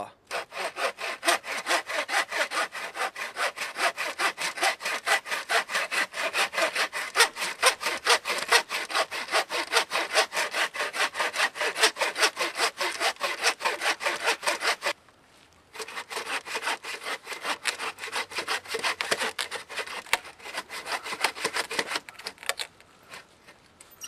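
Saw blade of a Zippo 4-in-1 Woodsman axe-and-saw combo tool cutting through a log in quick, even back-and-forth strokes, about four a second. A brief pause comes about fifteen seconds in, then sawing resumes and fades to lighter strokes near the end.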